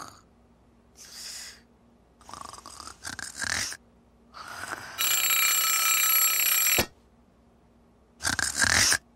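Cartoon snoring in three short breaths, then a wind-up alarm clock ringing loudly for about two seconds, followed by another short loud burst near the end.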